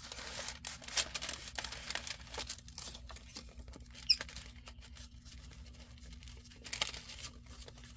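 Paper and card rustling, with light taps and scrapes, as small cards and paper pieces are slid in and out of a journal page's pocket. A faint steady hum runs underneath.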